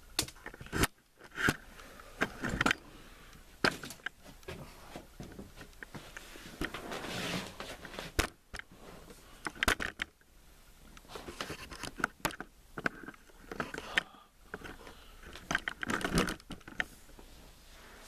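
Camera handling noise: a string of sharp knocks and clicks with scraping and rustling in between, as the camera is moved and set down in a new spot, cloth brushing against it at times.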